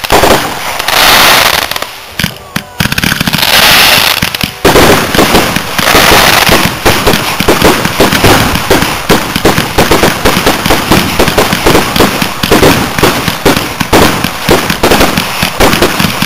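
Aerial fireworks display: a few hissing, crackling shell effects about a second each, then from about four and a half seconds in a dense rapid barrage of sharp bangs and crackles, several a second.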